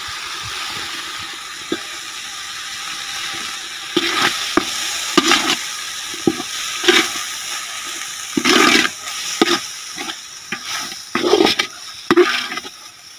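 Onion-tomato masala with freshly added chilli powder sizzling in oil in a metal pot. From about four seconds in, a steel ladle stirs it and scrapes against the pot in irregular strokes.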